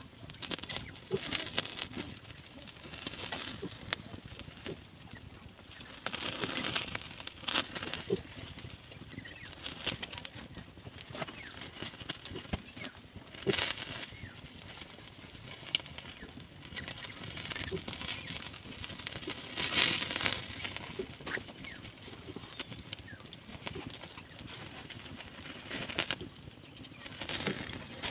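Open wood fire crackling under skewered meat, with frequent small snaps and a few sharper pops.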